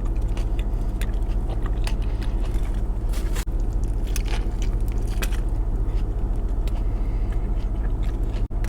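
Close-miked chewing and biting of a bacon cheeseburger, with many short wet, crackly mouth clicks over a steady low hum.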